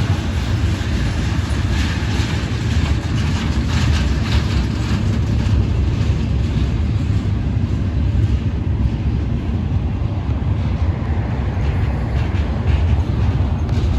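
Freight train hauling welded rail rolling past: a steady, loud low sound with faint clicking from the wheels.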